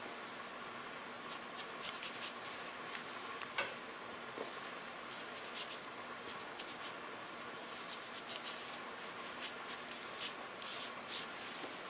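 Ink brush stroking and dabbing across paper: short scratchy rubs that come in clusters over a steady faint hiss, with one sharp tap a few seconds in.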